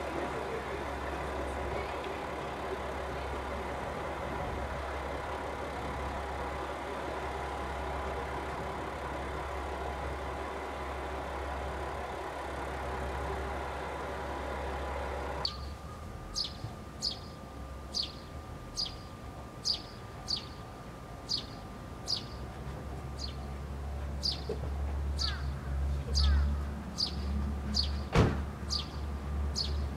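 A diesel railcar idles with a steady engine hum. After an abrupt change about halfway through, a bird calls with a short falling chirp about once a second, while the low rumble of an approaching diesel railcar grows and a single sharp click comes near the end.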